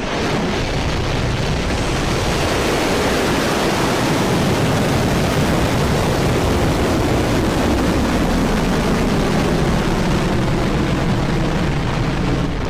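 Firefly Alpha rocket lifting off: its four Reaver kerosene-fuelled first-stage engines give a loud, steady rushing noise spread across all pitches.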